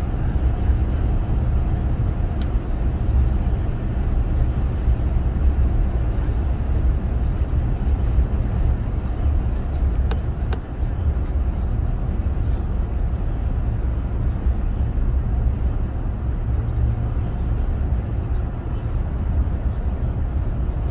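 Steady road and engine noise of a vehicle driving along a highway, heard from inside the cabin as a low, even rumble.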